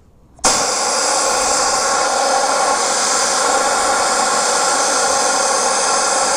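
A blower-type power tool, such as a shop vacuum or air blower, switches on about half a second in and runs steadily with a loud, even hiss and whine.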